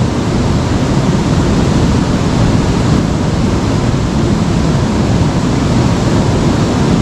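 Fast-flowing river water rushing over rocks: a steady, loud, unbroken rush.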